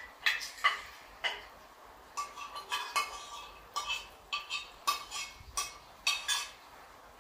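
Metal spoons clinking against stainless steel plates and bowls as several people eat: about a dozen irregular, short ringing clinks.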